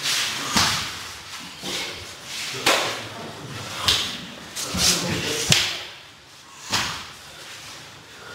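Sumo wrestlers training: a series of sharp slaps and thuds of bare skin and feet striking, irregularly spaced about a second apart.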